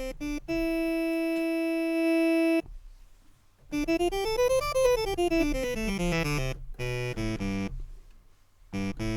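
Sampled accordion-synth SoundFont patch played on a keyboard: one long held note, then a quick run of notes rising and falling back down, then a few short notes.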